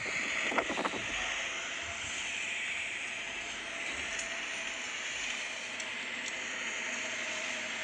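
Steady in-cabin noise of a moving car: an even hiss of tyres and engine with a faint low hum.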